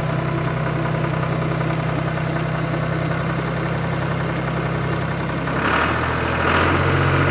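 Tractor engine idling steadily with a low, even pitch. About six seconds in the pitch steps and a brief higher sound flares twice before the engine settles into a new steady note.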